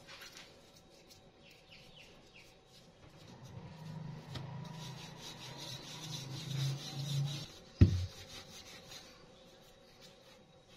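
Rolling pin rolling out tortilla dough, a run of back-and-forth rubbing strokes lasting about four seconds, ending with a single sharp knock.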